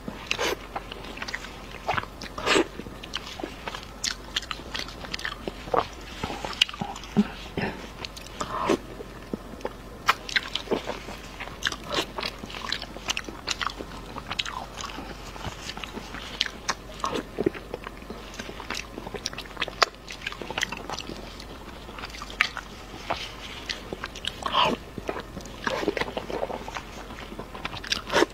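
Close-miked eating sounds: wet biting and chewing of saucy, braised food eaten by hand, with a dense, irregular run of short sharp mouth clicks and smacks.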